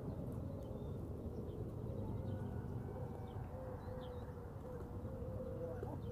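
A dove cooing, a low note repeated in short phrases, with a few brief high bird chirps, over a steady low rumble of wind on the microphone.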